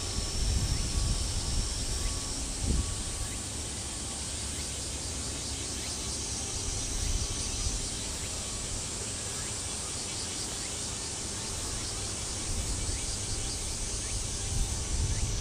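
Outdoor ambience: a steady high insect drone over a low rumble that swells at the start and again near the end.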